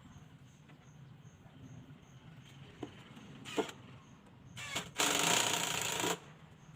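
A power tool runs in one loud burst of about a second, a little after a few sharp knocks, over a steady low hum.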